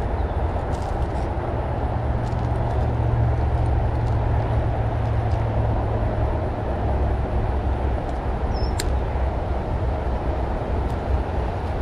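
Steady rush of highway traffic mixed with low wind rumble on the microphone, with a brief high click about nine seconds in.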